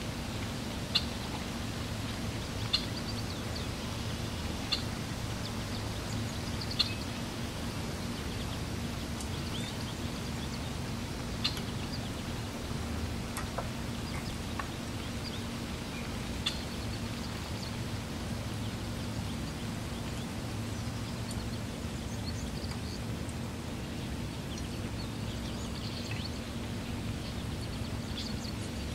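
Short, high bird chirps every few seconds over a steady low hum.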